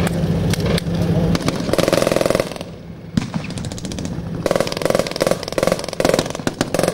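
Bursts of rapid machine-gun fire over the running diesel engine of an M113 armoured personnel carrier. There is one burst about two seconds in, then a string of short bursts in the last few seconds.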